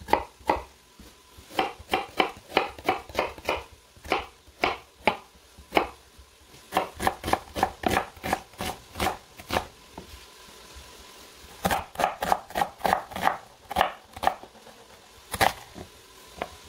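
Kitchen knife chopping a white onion on a wooden cutting board: quick runs of sharp knocks, about four a second, broken by short pauses.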